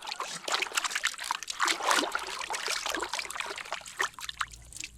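Water trickling and splashing irregularly as plastic toys are washed.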